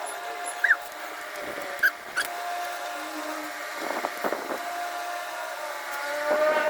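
Domestic cat meowing, once about four seconds in and again near the end, over a steady hum, with a few short high chirps in the first half.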